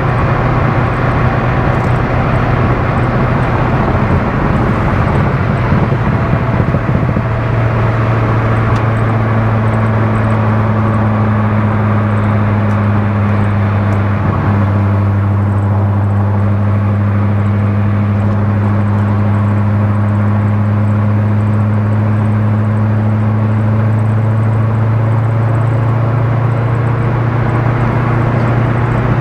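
Chevrolet Corvette C6 Z06's 7.0-litre LS7 V8 cruising at steady revs: a low, even drone over constant road noise, settling into a steadier, slightly lower tone about seven seconds in.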